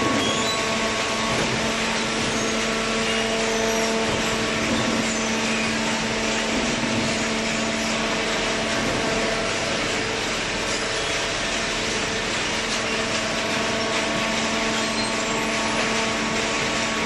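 Waste-paper baling machine running: a steady machine hum with several held tones over a loud, even noise.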